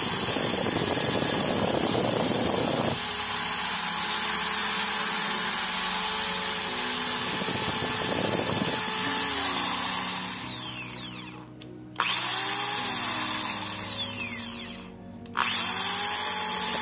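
Makita MT corded impact drill running unloaded in reverse, a steady high motor whine. About ten seconds in, its pitch falls as it winds down, then it starts again sharply; this happens twice.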